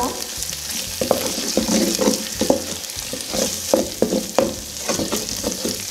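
Onion, garlic and ají mirasol and ají panca paste sizzling gently in oil over low heat in a metal pot, with a wooden spoon stirring and scraping, giving frequent short scrapes and knocks against the pot bottom.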